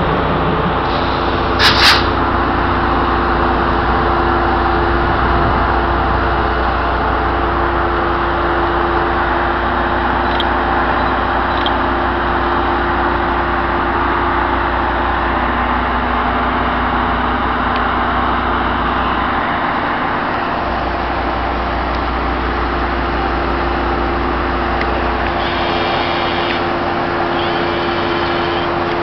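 Brookville BL20GH diesel locomotive running steadily at idle, with a constant low hum and drone. There is a single sharp click about two seconds in, and brief high-pitched tones twice near the end.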